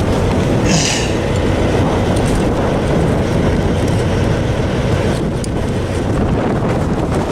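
Wind buffeting the microphone over a steady low rumble, with a short metallic jingle about a second in and a few clinks around five seconds in, from steel tire chains being handled on a truck's wheels.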